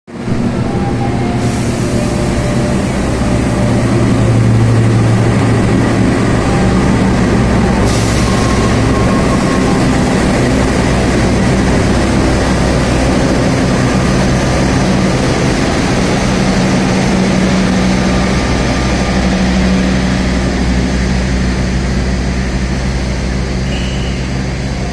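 Diesel locomotive engine running with a steady low drone as a passenger train rolls in along the platform. There is a brief hiss about eight seconds in.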